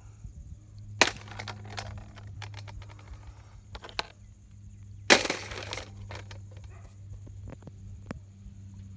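Snail shells knocking against a metal basin as they are handled: two loud, sharp clacks about four seconds apart, with a few lighter clicks between and after.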